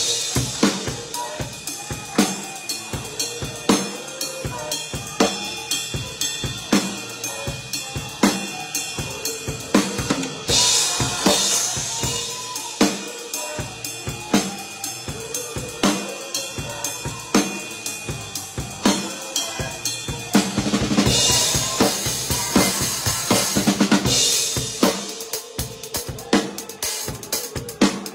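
Drum kit played live: a busy groove of kick drum, snare and hi-hat struck with sticks, with cymbal crashes washing over the beat about ten seconds in and again after about twenty seconds.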